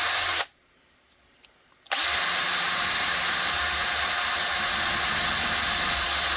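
Power drill with a 1/4-inch bit drilling out a rivet set in kydex. It runs briefly and stops about half a second in, then starts again with a short rise in pitch about two seconds in and runs steadily.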